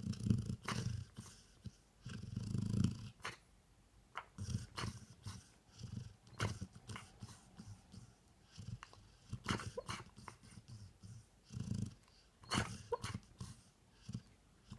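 A one-year-old Golden Retriever snoring in its sleep: irregular low, rasping breaths, the loudest in the first three seconds, with short clicks in between.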